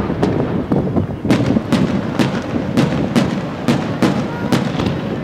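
Aerial firework shells bursting: a rapid string of sharp bangs, about two a second, starting about a second in, over a continuous rumble from the display.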